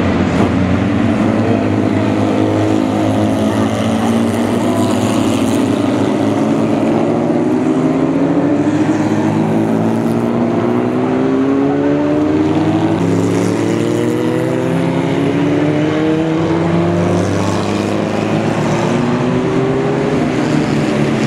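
Several FJ1600 single-seater race cars, with Subaru 1.6-litre flat-four engines, accelerating past on the circuit, their engine notes overlapping and climbing again and again as they pull through the gears.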